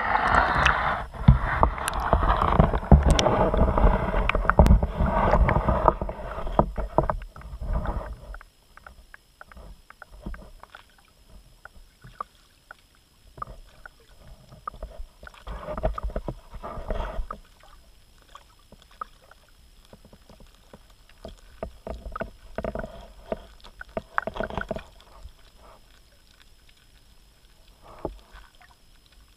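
Pond water sloshing and churning around a GoPro as it is pushed under the surface on a pole, loud for the first eight seconds. After that, shorter scattered bursts of water sloshing with quieter gaps.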